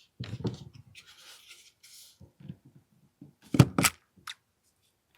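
Clicks and knocks of small hard parts being handled while an AAP-01 airsoft pistol is worked on, with light rubbing between and a sharp double click about three and a half seconds in.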